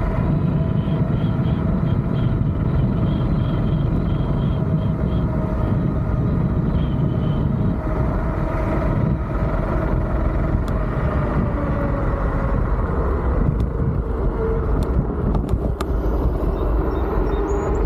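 Electric scooter on the move: wind rushing over the microphone and tyre noise from its off-road tyres, under a steady motor whine that dips slightly in pitch about two-thirds of the way through.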